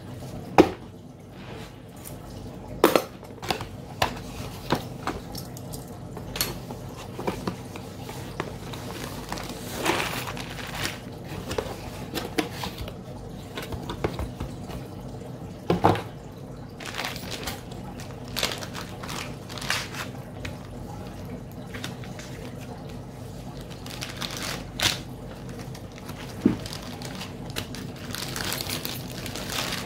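Zip-lock plastic bags of small metal kit parts being handled and set down on a desk mat: plastic crinkling and rustling, with scattered sharp clicks and light clinks of loose nuts, bolts and plates.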